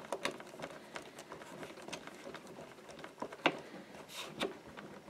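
Light, scattered clicks and taps of small metal hardware and plastic as lock nuts are fitted by hand onto screws inside a small plastic ammo can; the sharpest click comes about three and a half seconds in.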